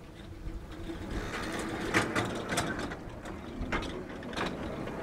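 Battery-electric 7¼-inch gauge ride-on locomotive running along the track under its electric motor and gearing, growing louder from about a second in as it approaches. Several sharp clicks come as its wheels cross rail joints and points.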